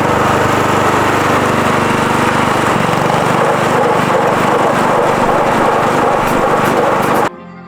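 A small engine running steadily and loudly. It cuts off suddenly near the end.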